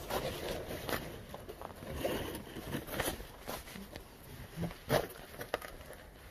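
Footsteps and light knocks from a person stepping into a wooden smokehouse, irregular, roughly one a second.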